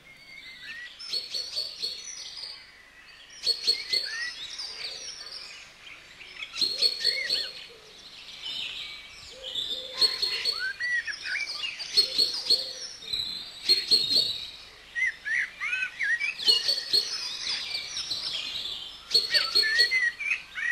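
Birds chirping and whistling in clusters of short, rising and falling calls, from the soundtrack of a short children's animation film.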